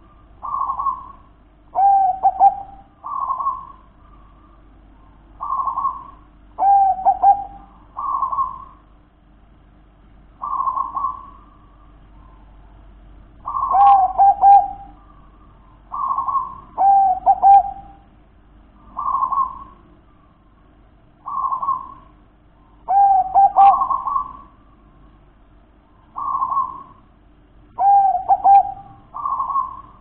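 Zebra dove (perkutut) cooing: short soft notes repeated about every two seconds, several phrases ending in a lower rolling trill.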